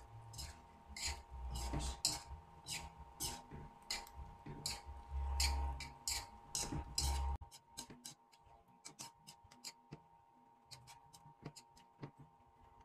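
Metal spatula scraping and knocking against a wok while stirring fried tofu in a thick sauce, about two strokes a second. The sound drops suddenly to a fainter level about seven seconds in, with the strokes carrying on.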